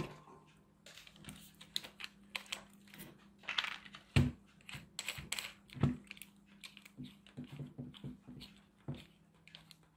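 Irregular light clicks and taps of small metal parts and a hand drill being picked up and set down on a workbench mat, with two louder knocks about four and six seconds in, over a faint steady low hum.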